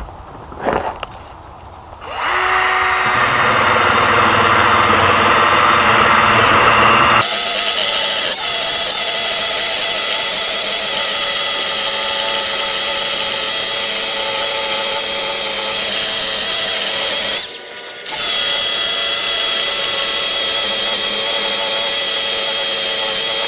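Cordless drill spinning a fluted rubber eraser wheel against a fibreglass boat hull, stripping off old vinyl lettering. It starts about two seconds in, turns fuller and noisier about seven seconds in, stops for half a second near the end and starts again.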